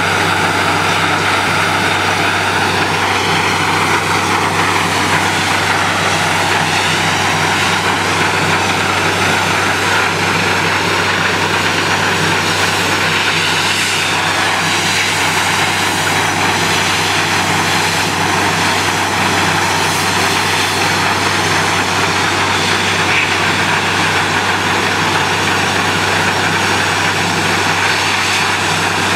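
Truck-mounted borewell drilling rig running: its engine and air compressor make a loud, steady drone with a constant low hum and a broad hiss.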